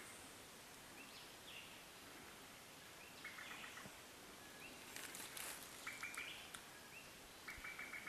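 A bird calling four times, about every two seconds: each call is a short rising note followed by a quick stutter of lower notes. Faint steady background hiss.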